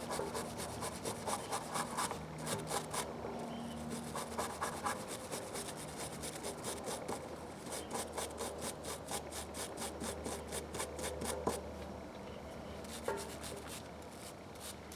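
Repeated short back-and-forth rubbing strokes on the small metal parts of a ratchet being cleaned, about three or four strokes a second, fading off near the end.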